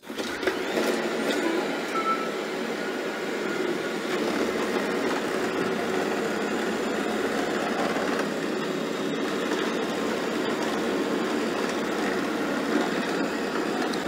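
Shark AV2501AE robot vacuum running steadily as it vacuums spilled protein powder from a carpet.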